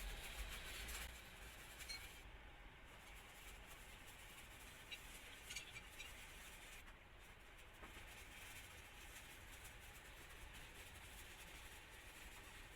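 Near silence: faint steady background hiss with a low hum and a few small clicks.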